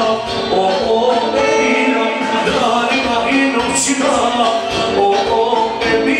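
Loud music with a singer.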